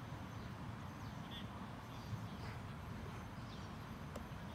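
Football-pitch ambience: a few faint short shouts from players across the field over a steady low rumble, with one sharp knock near the end.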